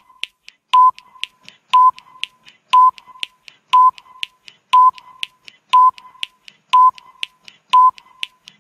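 Countdown timer sound effect: a short electronic beep once every second, eight in all, with fainter quick ticks between the beeps.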